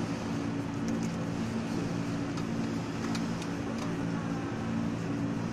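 A machine's steady hum with a few light ticks.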